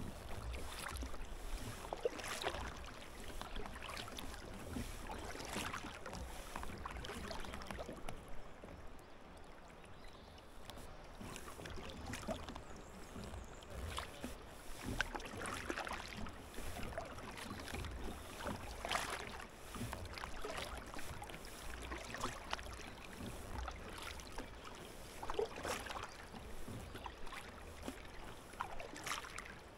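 Double-bladed kayak paddle dipping and pulling through calm river water, one splashing stroke roughly every second and a half to two seconds as the blades alternate sides, with water trickling along the kayak's hull.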